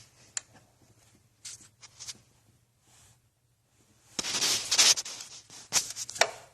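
Close handling noises: scattered rustling and scraping with a few sharp clicks, then a louder burst of scraping and rustling about four seconds in.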